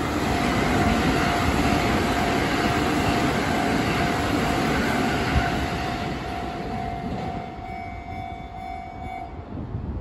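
An electric commuter train passes a level crossing at speed, its wheels running over rail joints and its cars rushing by, then fading after about six seconds. Throughout, the crossing's electronic warning alarm rings on one steady tone and cuts off near the end.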